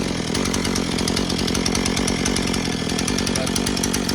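Gas chainsaw's small two-stroke engine running steadily, at a fast even firing rate.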